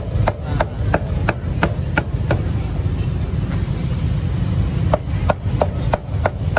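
Cleaver chopping roast meat on a wooden chopping block: quick, even strokes about three a second, in two runs with a pause of a couple of seconds between them.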